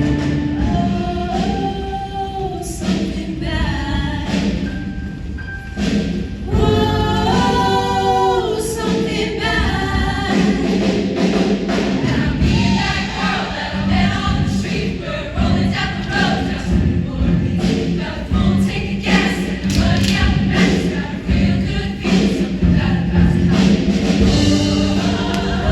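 Show choir singing a song with backing music. From about ten seconds in, a steady beat of sharp hits runs under the voices.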